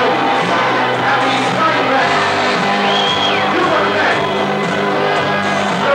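Rock music playing loudly.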